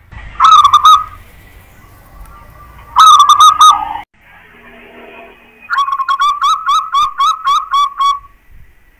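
Zebra dove (perkutut) singing: two short cooing phrases, then a longer run of about ten quick staccato coos, about four a second.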